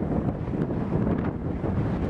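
Wind buffeting the microphone in a steady low rumble, with a few faint clicks scattered through it.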